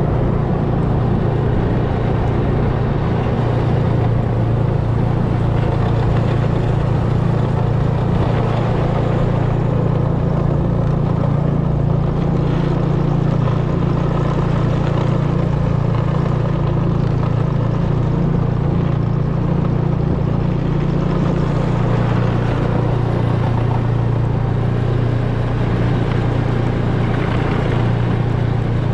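Snowmobile engine running at a steady speed, a loud, even drone with no break.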